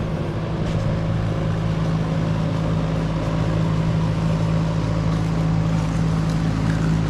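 A large engine running steadily at a constant speed, its low note holding unchanged throughout.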